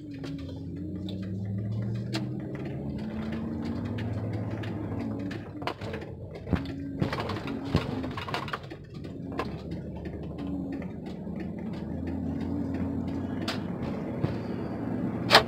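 Car engine heard from inside the cabin, its note rising and falling several times as the car pulls out and speeds up along the street. Scattered small clicks and a sharp click near the end.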